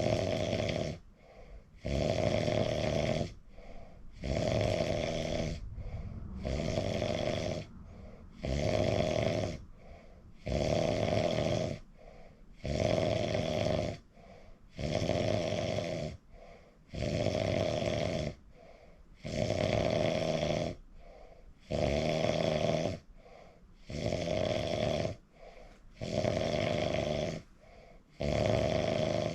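A sleeping person snoring: a steady rhythm of loud snores about a second long, roughly every two seconds, with quieter breathing sounds between them.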